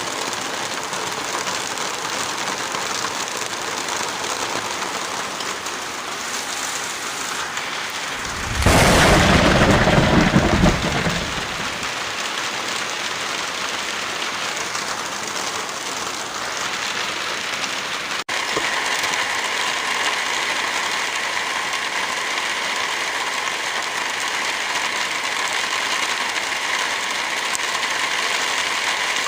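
Heavy rain falling steadily. About nine seconds in, a loud low rumble rises and lasts around two seconds. About eighteen seconds in, the sound cuts abruptly to a slightly louder, brighter rain.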